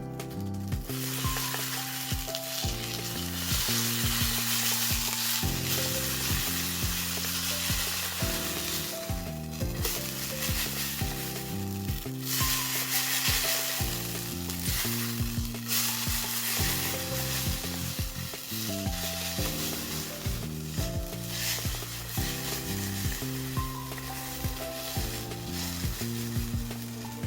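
Food sizzling in an aluminium pan over a small wood-burning stove, a steady hiss with a few brief breaks, under background music with a steady melody.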